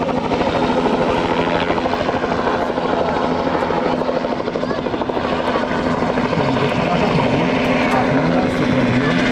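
Bell 206 helicopter hovering low and then climbing away, its two-blade main rotor chopping rapidly over the steady hum of its turbine.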